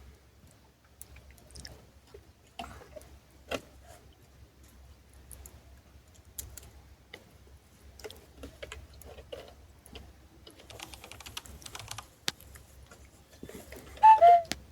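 Small campfire crackling, with irregular pops and snaps and a denser burst of crackle partway through. Near the end a short, loud voiced cry falls in pitch.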